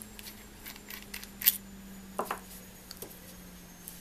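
Light clicks and metallic clinks from a small stainless-steel peanut lighter being turned in the fingers, its parts knocking together. One sharper click comes about a third of the way in and a pair of ringing knocks just past halfway, over a faint steady hum.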